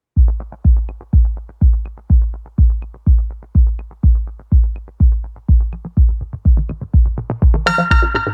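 Electronic dance music: a steady drum-machine kick drum about two beats a second, with a synthesizer chord coming in near the end.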